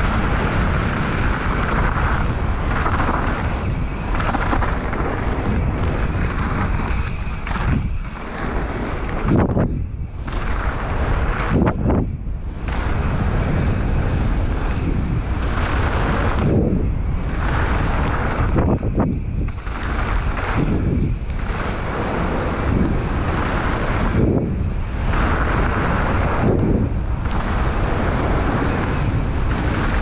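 Wind buffeting an action camera's microphone as a Canyon Strive enduro mountain bike is ridden fast down a dirt trail, mixed with its tyres rolling over dirt and the bike rattling. The noise is steady and loud, dropping away briefly several times.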